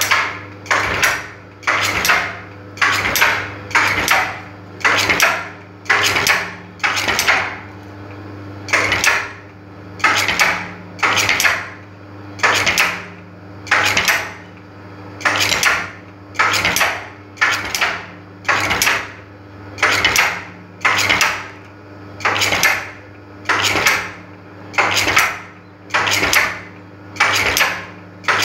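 Brush tufting machine stamping tufts of bristles into a drilled wooden brush block: a regular metallic clack about one and a half to two times a second, with a short pause now and then as the block is moved along, over a steady motor hum.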